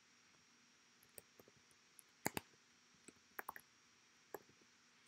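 Faint computer keyboard keystrokes and mouse clicks, scattered and irregular, the loudest a quick pair of clicks a little over two seconds in.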